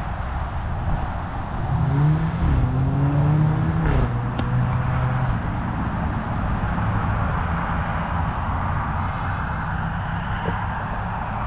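Road traffic going round a roundabout: a steady wash of tyre and engine noise. From about two to five seconds in, one car's engine rises in pitch as it pulls past.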